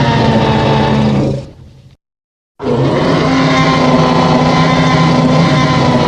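Two Godzillasaurus roar sound effects, the film dinosaur's monster roar. The first fades out about a second and a half in; after a brief silence a second long, steady-pitched roar begins.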